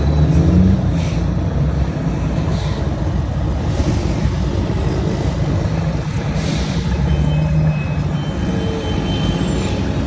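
Volvo FH truck's inline-six diesel engine rumbling through an aftermarket exhaust, the engine note swelling briefly just after the start and again about seven seconds in.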